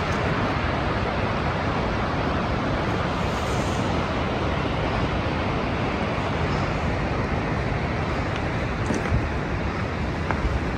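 Steady, even rushing of a mountain stream.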